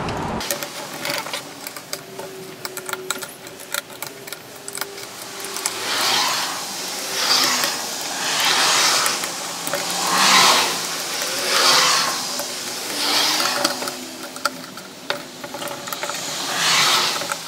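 Socket ratchet on an extension clicking as it runs the case bolts of an aluminum transaxle housing down snug. Scattered clicks come first, then from about six seconds on a regular run of short ratcheting bursts, about one every second and a half, as the handle is swung back and forth.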